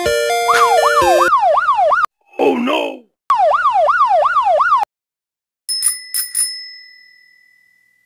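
An ice cream truck's electronic jingle ends about a second in, overlapped by a cartoon police car siren sweeping up and down fast, about three sweeps a second. The siren breaks off briefly for a short falling swoosh, then returns until about five seconds in. After a pause, a small bell rings three times quickly and fades.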